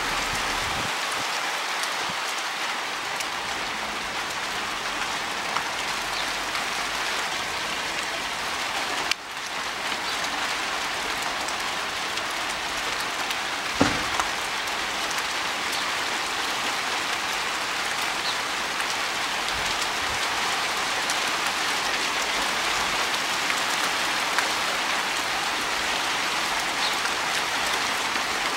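Hail and rain falling steadily on the street and parked cars, a dense even hiss with scattered small ticks. One sharp knock about 14 seconds in.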